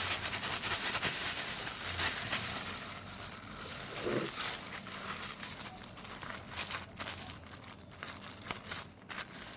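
Soft crinkling and rustling of packaging, with scattered small clicks, as mango butter is handled.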